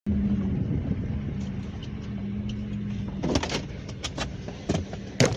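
A car engine idling with a steady low hum, then a run of sharp clicks and knocks in the second half, the loudest near the end.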